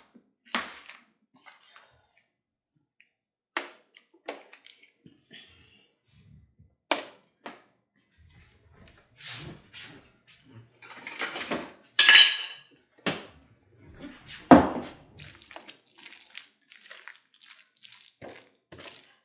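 A few separate taps, then from about halfway a spatula stirring sticky cooked macaroni and cheese in a thin disposable aluminium foil pan: wet squelching of the noodles, with the foil pan crackling and clanking, loudest just past the middle.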